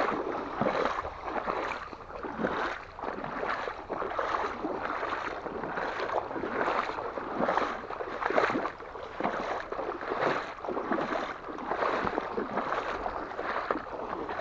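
Footsteps wading and sloshing through shallow floodwater, splashing at a steady walking pace of about two steps a second.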